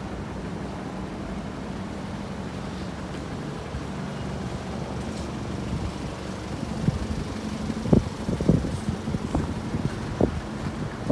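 Steady low rumble of a motor vehicle. From about seven seconds in, irregular thumps of wind buffeting the microphone come over it.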